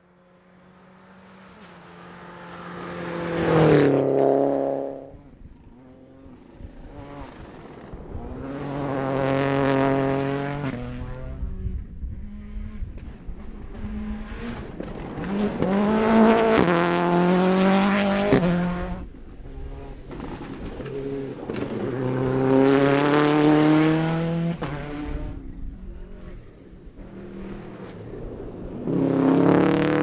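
Rally cars passing one after another at speed on a gravel stage, about five passes. Each engine note climbs hard as the car approaches and drops away as it passes, over the rush of tyres and thrown gravel.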